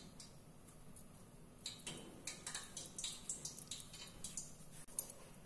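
Faint, irregular small clicks and soft taps of fingers pinching shut and pressing a filled kachori dough ball, over a low steady hum.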